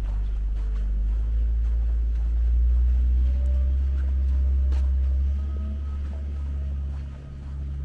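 Low rumble of a motor vehicle's engine running nearby, its pitch stepping up about five seconds in.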